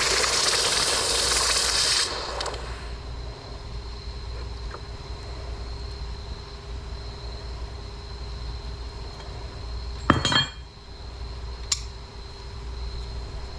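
Brass-melting furnace's burner rushing loudly, then cut off suddenly about two seconds in. Later a sharp metallic clink that rings briefly, followed by a lighter click.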